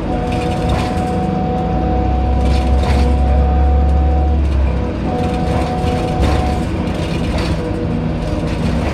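2007 Orion VII hybrid bus with a Cummins ISB diesel and BAE Systems HybriDrive, standing and running, heard from behind. A low engine rumble swells in the middle and then eases, with steady whining tones above it.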